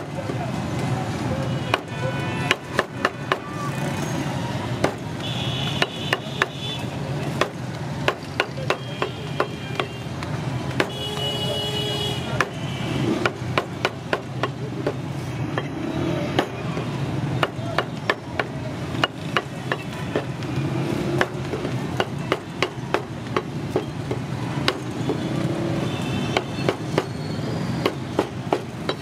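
Heavy cleaver chopping goat kidneys and hearts on a thick wooden chopping block: quick, irregular runs of sharp knocks of blade on wood, over steady street noise.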